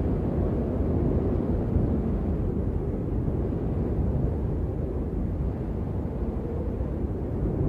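Strong wind buffeting the microphone: a steady low rumble with no distinct events.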